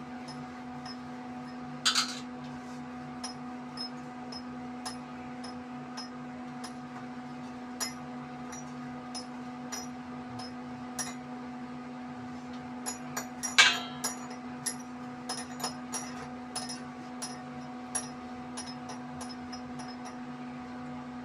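Puri dough being rolled out: a rolling pin knocking and clicking on a rolling board in irregular taps, with two louder clatters, about two seconds in and around the middle, over a steady low hum.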